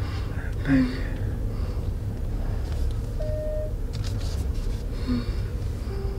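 Steady low rumble of road and engine noise inside a car cabin while driving, with a short murmur of a voice about a second in.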